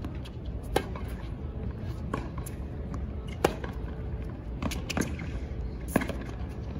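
Tennis rally on a hard court: sharp racket strikes on the ball about every one to one and a half seconds, the loudest from the near player's forehand about midway, with fainter ball bounces between them.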